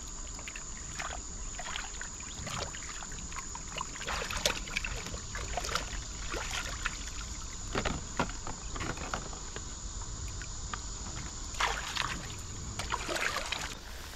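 Shark carcass being washed by hand in river water: irregular splashes and sloshing, over a steady high insect drone.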